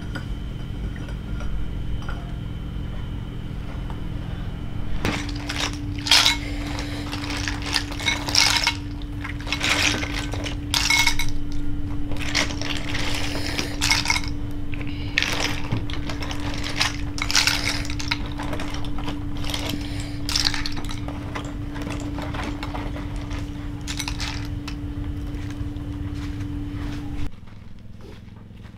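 Metal kitchenware clattering and clinking in quick irregular strokes, over a steady low hum. A steady tone comes in about five seconds in and cuts off suddenly near the end.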